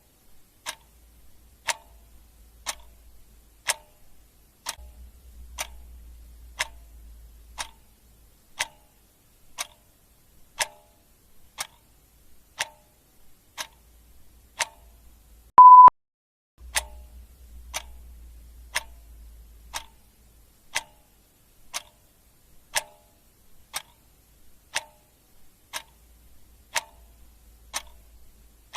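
Clock-ticking sound effect: a steady tick-tock, about two ticks a second, alternating stronger and weaker. About sixteen seconds in, a short beep at a single pitch, louder than the ticks, cuts in once.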